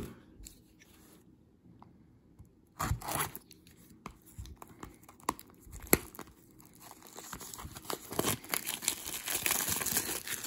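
Clear plastic shrink-wrap being picked at and torn off a sealed trading-card box: a few short rips, a sharp click about six seconds in, then a long stretch of crinkling plastic near the end.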